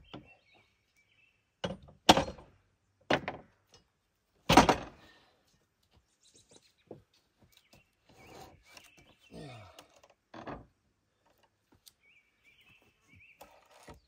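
Heavy wooden thunks as a log is pushed and shifted into place on a portable bandsaw mill's bed, about four loud knocks in the first five seconds, the loudest a little past halfway through them, then lighter knocks and scrapes. Birds chirp faintly near the start and near the end.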